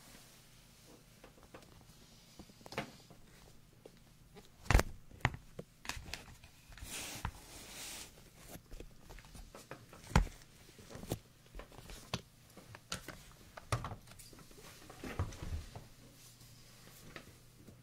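Close-miked ASMR hand sounds: fingers tapping and brushing near the microphone, giving irregular sharp taps and clicks. A stretch of rustling comes about seven seconds in, and the two loudest taps fall around five and ten seconds in.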